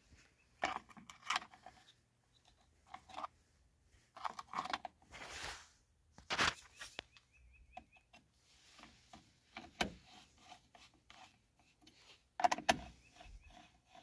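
Scattered clicks, knocks and rustles of plastic parts being handled as the air filter and its plastic cover are fitted back onto an FS-111 string trimmer's engine.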